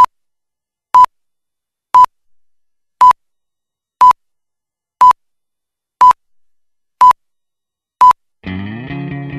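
Film countdown leader beeps: a short, loud, single-pitched beep once a second, nine times. Music starts right after the last beep, near the end.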